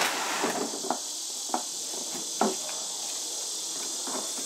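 Steady high-pitched drone of summer insects, with a few light knocks as hard plastic playhouse panels are handled, two of them louder, about a second apart.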